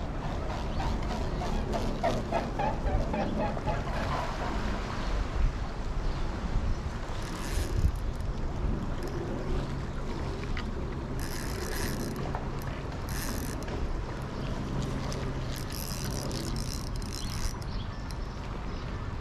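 Fishing reel being cranked to retrieve a lure: a steady mechanical winding through the middle, with a few short hissy bursts in the second half.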